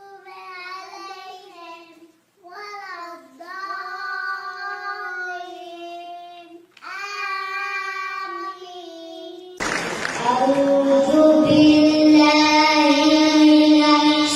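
A young child reciting the Quran in a melodic, drawn-out chant, phrases held long with short breaths between them. About two-thirds of the way in it cuts abruptly to a louder recording of a recited voice holding a long note, with more room echo.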